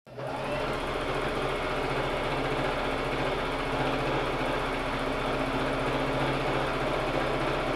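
Electric sewing machine running steadily, stitching a seam through knit sweater fabric, with a fast, even stitch rhythm over a motor hum.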